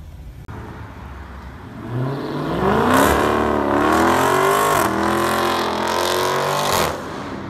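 Dodge Charger accelerating hard. The engine note climbs steeply about two seconds in, holds high, and dips briefly once at a gear change about five seconds in. The sound falls away sharply near the end.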